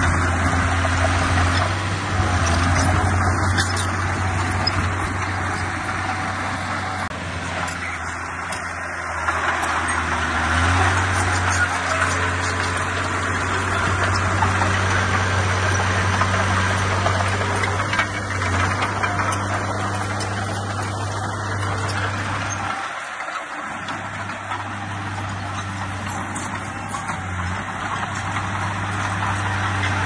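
Diesel engines of a Komatsu D20P crawler bulldozer and a dump truck running steadily under load, the low engine note shifting in pitch as they work and dropping away briefly near the end.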